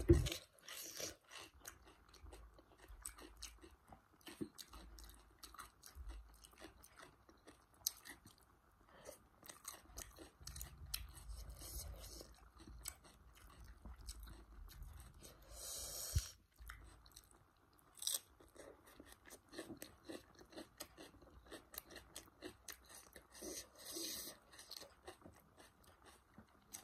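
Close-miked chewing and crunching of food eaten by hand: paratha with curry and crisp lettuce and cucumber. Soft irregular chewing with scattered crisp crunches, a few louder near the middle and toward the end.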